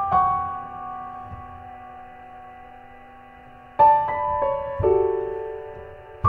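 Background piano music: slow chords struck and left to ring and fade, with a new chord at the start and a few fresh notes struck about four seconds in.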